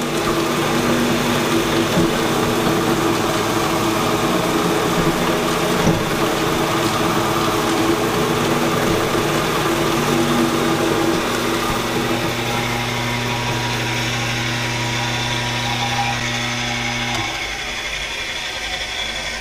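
Old milling machine running on power from a homemade rotary phase converter, a three-phase electric motor that generates the missing phases: a steady electric motor hum with mechanical whir. Near the end the deepest part of the hum drops out and it gets a little quieter.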